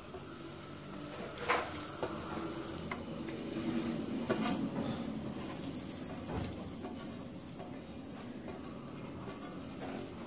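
Dry-roasted whole spices (seeds, cardamom pods, cinnamon bark) swept by hand across a stainless steel plate into a steel container. The spices rattle and scrape on the metal with scattered sharper clicks, the sharpest about a second and a half in and again past four seconds, over a low steady hum.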